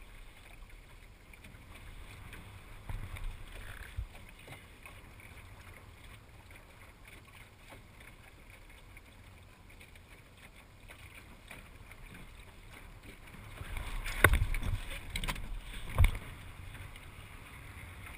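Wind and water noise aboard a small sailing dinghy under way. A few knocks come about four seconds in, and a louder clatter of the boat's gear about fourteen seconds in ends with a sharp knock two seconds later.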